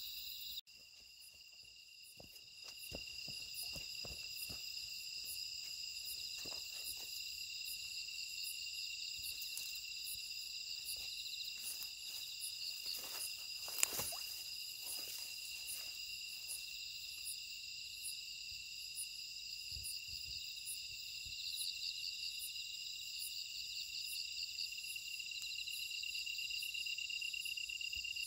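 Night insect chorus: crickets and other insects trilling steadily at several high pitches. A few faint knocks come through, and one sharp click about halfway through.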